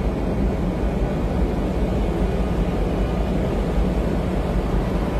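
Steady, loud rumbling noise aboard a moving boat: wind buffeting the phone's microphone over the low running of the boat's engine.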